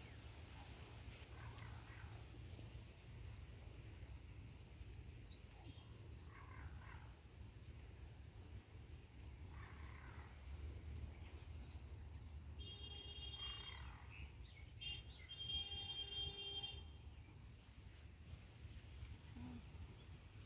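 Faint field ambience: a steady insect trill with a low rumble, and soft rustles of grass being cut and gathered by hand for fodder. Around the middle come two short high-pitched tones.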